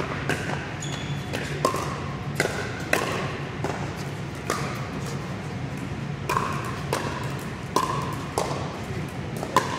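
Pickleball paddles hitting a hollow plastic ball in a rally, a run of sharp, irregular pops about every half second to a second, echoing in a large indoor hall.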